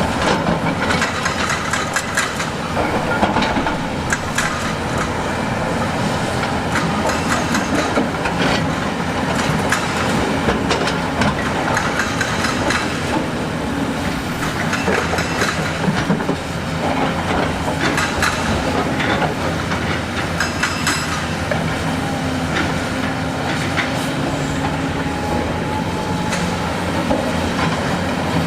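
Heavy tracked construction machine's diesel engine running, with continuous clanking and knocking of metal and rock throughout.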